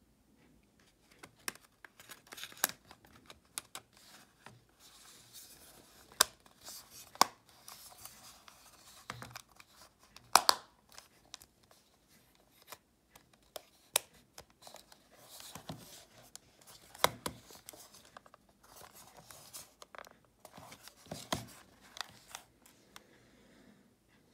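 Plastic and metal parts of a Panasonic RQ-SX32 portable cassette player clicking and scraping as it is handled and fitted back together, with irregular sharp clicks among softer rustling.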